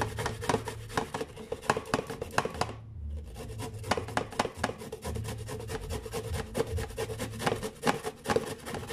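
Carrot being grated by hand on a small grater: a quick run of rasping strokes, about three or four a second, with a short break about three seconds in.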